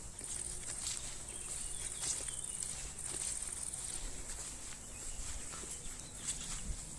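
Insects trilling steadily in woodland, a high continuous buzz that swells and fades, with scattered soft steps and rustles on the forest floor.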